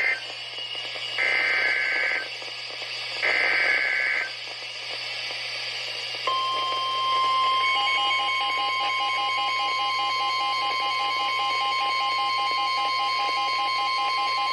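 Emergency Alert System data bursts over weather radio: three short screeching digital bursts in the first four seconds, ending one warning. About six seconds in, the steady single-pitch 1050 Hz warning alarm tone starts and holds for about nine seconds, announcing the next warning.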